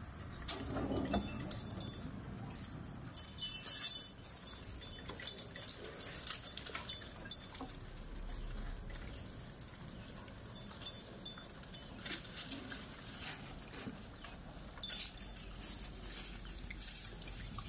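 Scattered clicks, taps and light metallic rattles from macaques climbing and gripping a barred metal window grille while they take grapes.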